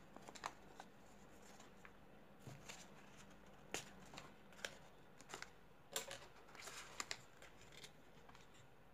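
Folded origami paper being handled and creased by hand: scattered crisp crackles and taps, the loudest about four and six seconds in.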